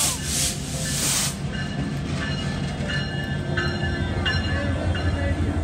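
Canadian Pacific Holiday Train's diesel locomotive and freight cars passing close by, a steady low rumble of engine and wheels on rail. A short burst of hissing noise comes in the first second, and thin high tones sound in the middle as the cars roll past.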